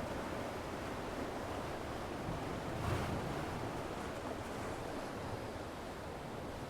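Surf washing on a shore with wind, a steady rushing noise that swells briefly about three seconds in.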